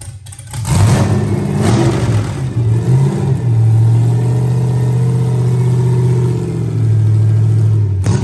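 Cammed LS V8 in a burnout truck revving: the pitch rises and falls over the first few seconds, then the engine is held at steady revs for about four seconds before dropping off abruptly near the end.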